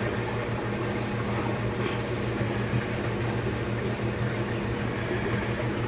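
Steady low mechanical hum with a wash of moving water, typical of aquarium pumps and filtration running on large fish tanks.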